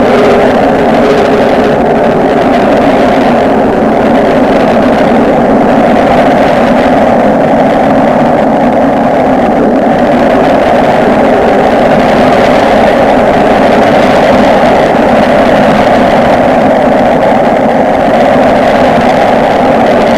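Microwave oven running with a loud, steady hum that does not change.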